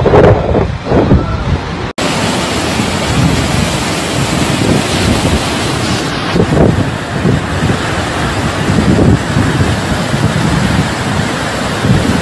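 Hurricane winds blowing hard, gusts buffeting the microphone. After an abrupt cut about two seconds in, a steady rush of storm wind.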